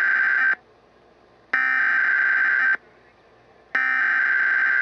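Emergency Alert System SAME header: harsh digital data bursts of rapidly warbling tones, each about a second long, repeated with a second's pause between. It is the coded start of an alert, here the severe thunderstorm warning that follows.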